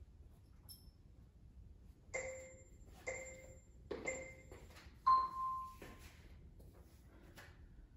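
Workout app's interval timer counting down: three short beeps about a second apart, then a longer, louder beep on a different single tone, marking the switch to the next interval.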